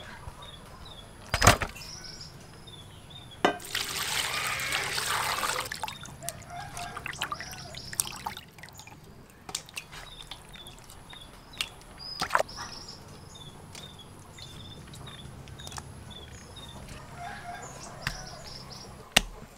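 Water pouring and splashing in a metal basin as raw chicken breasts are washed by hand, with scattered clicks and a few sharp knocks, the loudest about a second and a half in. Birds chirp in the background.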